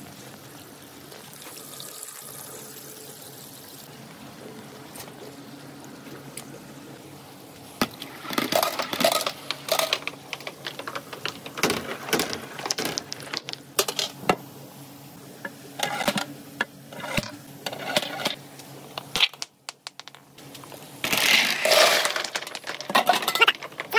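Water running down a plastic rain-gutter slide; from about eight seconds in, small billiard balls roll and knock against each other and the gutter in bursts of hard clacks. A short gap near twenty seconds, then a louder noisy rush of water and clattering balls.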